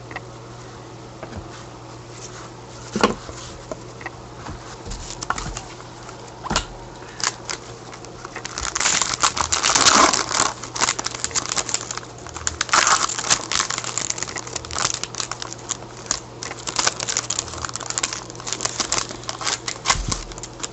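Wrapper of a hockey card pack crinkling and tearing as it is opened, and cards being handled. The crackling comes in scattered bits at first, then turns dense and nearly continuous from about eight seconds in.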